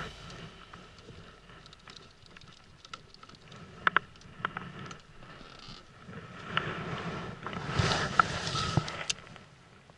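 Quiet open-air ambience aboard a small inflatable boat: faint wind and water with scattered sharp clicks and knocks from handling gear, the loudest about four seconds in and just after eight seconds, and a short stretch of rustling and handling noise around eight seconds.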